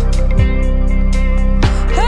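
Music led by guitar, with sustained chords and a steady beat.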